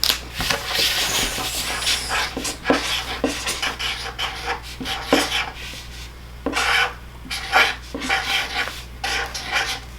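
Marbles shaken in a bag, played back as a recording: glass marbles clacking and rattling against each other in irregular bursts of clatter.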